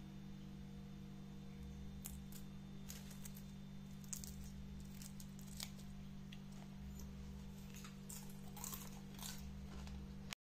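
Crisp toasted coconut flakes crackling and crinkling as they are handled, in scattered faint clicks from about two seconds in, over a steady low hum.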